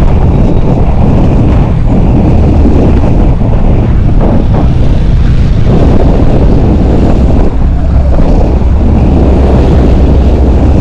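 Steady, loud wind rumble on the microphone of a rider on a Yamaha sport motorcycle at road speed, with the bike's engine and tyre noise underneath.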